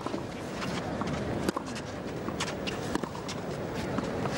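Tennis rally on a clay court: four sharp racket strikes on the ball, about one every second and a half. Between the shots come quick footsteps and scuffs of the players' shoes on the clay.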